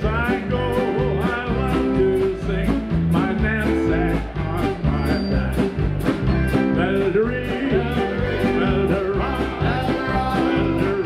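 Live polka band: accordion, drums and keyboard playing to a steady beat, with a man singing the lead.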